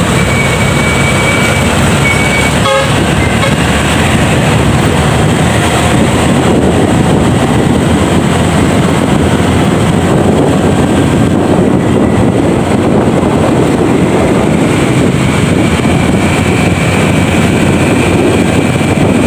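Loud, steady noise of riding a motorcycle: the engine running and wind rushing over the microphone. A brief beep sounds about three seconds in.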